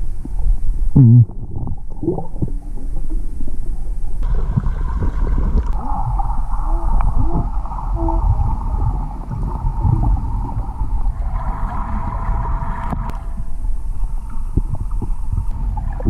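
Muffled underwater rumble and water movement heard through a submerged camera, with a loud low thump about a second in. A steady mid-pitched whine joins about four seconds in and grows stronger near the end.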